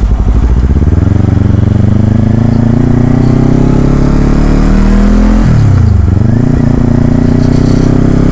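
Motorcycle engine, the Kawasaki Z400's parallel twin, pulling under acceleration with its pitch rising for several seconds. About five and a half seconds in the pitch drops sharply and climbs back, then holds steady.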